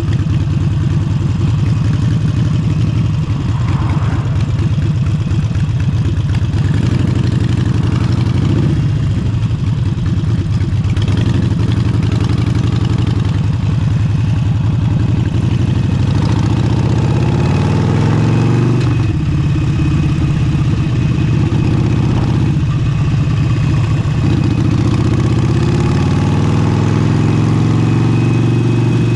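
Harley-Davidson Forty-Eight's air-cooled 1200 cc V-twin with a Vance & Hines exhaust, running under way. Its pitch climbs as it accelerates and drops at a gear change about 19 seconds in, drops again around 22 seconds, then climbs once more toward the end.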